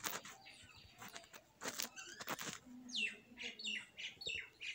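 Small bird chirping in the background: a quick run of high, falling chirps starting about three seconds in.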